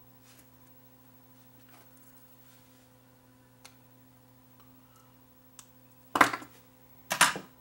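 Circuit board being desoldered with a soldering iron: quiet apart from a faint steady hum and a few light clicks, then two loud, short knocks about a second apart near the end as the board is jolted to free the capacitor.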